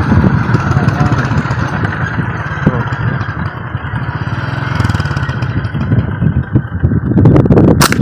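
Motorcycle engine running steadily at low speed, a low rumble, with a single sharp snap near the end.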